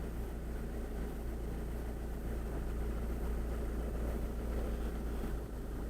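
Citroën car idling with a steady low rumble; no distinct knock stands out.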